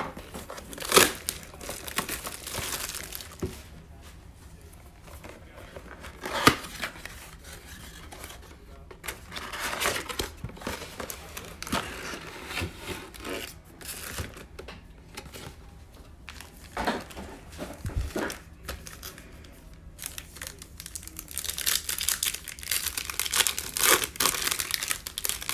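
Cardboard of a 2020 Bowman Chrome mega box being handled and torn open in short rustles and clicks. Near the end comes a longer stretch of crinkling as a foil-wrapped card pack is ripped open.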